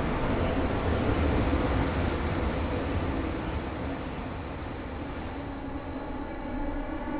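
A steady low rumble with a thin high whine over it, easing off a little about halfway through.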